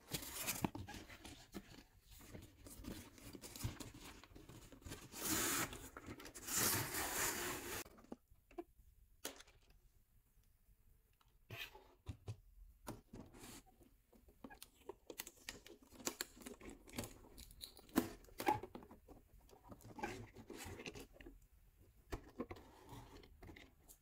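Cardboard box and packaging of a toy RC tour bus being opened and unpacked: rustling and scraping of cardboard, with two louder stretches of scraping about five to eight seconds in, then scattered clicks, taps and rustles as the plastic bus and its remote are handled.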